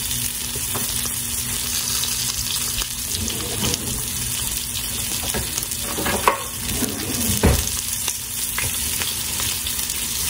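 T-bone steak searing in hot oil and butter in a frying pan, sizzling steadily. A couple of brief knocks stand out about six and seven and a half seconds in.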